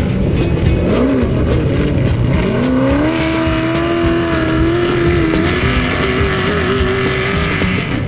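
Off-road race vehicle engine revving hard: its pitch climbs steeply about two and a half seconds in and then holds high at full throttle, with music underneath.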